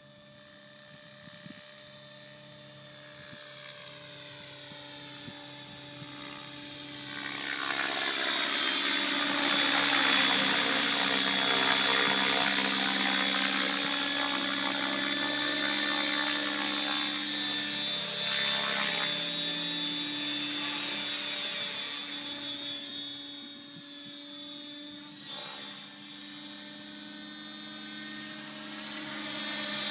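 Electric Align T-Rex 700 RC helicopter flying past: the whine of its motor and drivetrain grows louder, is loudest about ten to fifteen seconds in, then fades as it moves away and swells again near the end. The pitch bends up and down as it passes.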